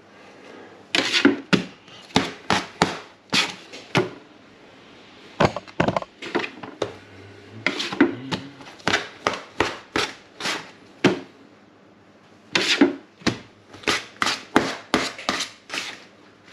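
Dough scraper chopping through bread dough and knocking on a stainless-steel bench as the dough is divided into loaf-sized pieces. The sharp taps come in quick runs of several a second, with short pauses between the runs.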